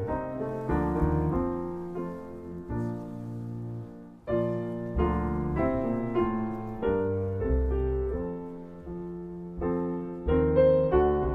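Solo piano playing slow chords, each struck sharply and then left to fade.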